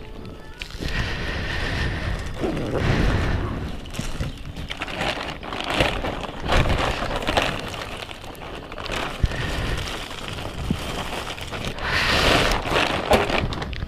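Plastic bags of merchandise rustling and crinkling in irregular bursts as they are handled, with low rumbles and bumps from the camera being brushed and knocked.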